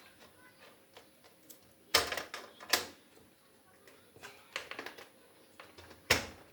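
A few sharp clicks and knocks of things being handled: two louder ones about two seconds in, a small cluster a little later, and a loud one near the end. The vacuum cleaner is not running.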